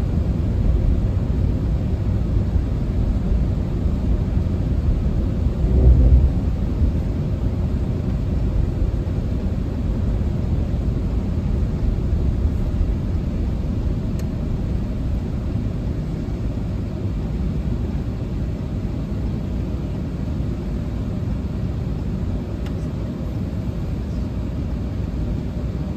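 Steady low road and engine rumble inside a moving vehicle's cabin at highway speed, with a brief louder low bump about six seconds in.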